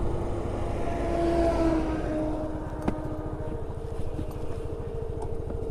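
Motorcycle running at riding speed, a steady low rumble of engine and wind. An oncoming vehicle swells past about a second and a half in.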